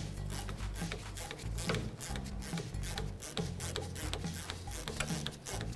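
Ratchet wrench clicking in quick back-and-forth strokes as an 18 mm castle nut is backed off an outer tie rod end stud.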